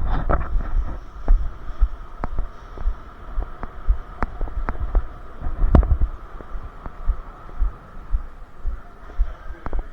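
Repeated low thumps, as of footsteps and gear jolting a body-worn camera while the player moves, with scattered sharp clicks and a faint steady hum.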